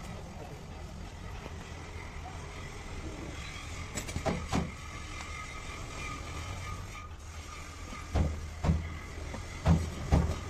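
Steady low rumble of a vehicle engine, with a few clicks about four seconds in and a run of loud thumps about twice a second in the last few seconds.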